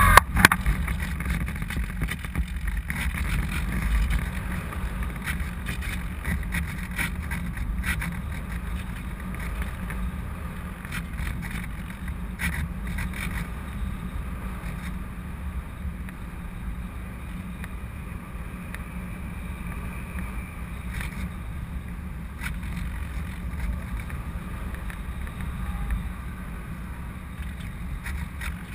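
Steady rush of air over a GoPro camera carried aloft on a Parkzone Radian Pro RC glider, with a low rumble underneath and a few faint clicks. It eases off slightly as the flight goes on.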